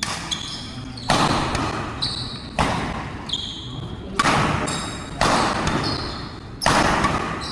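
A badminton rally in an echoing sports hall: rackets strike the shuttlecock six times, about one to one and a half seconds apart, each hit ringing on in the hall. Sneakers squeak on the court floor between shots.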